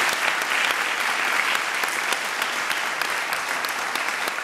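Audience applauding, many hands clapping, gradually dying down.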